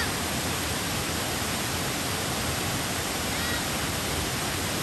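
Panther Creek Falls, a broad tiered waterfall spilling over rock ledges into a pool, rushing in a loud steady roar of falling water that cuts off suddenly at the end.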